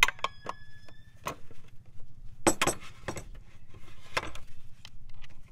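Handling noises from a clear vinyl hose with a brass fitting being connected to a brake pressure-bleeder adapter: scattered clicks, clinks and light knocks. A brief ringing tone sounds in the first second, and a low steady hum runs underneath.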